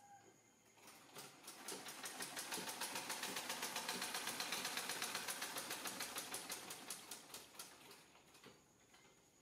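Sewing machine stitching: a rapid, even clatter that picks up about a second in, runs steadily, then slows and stops near the end.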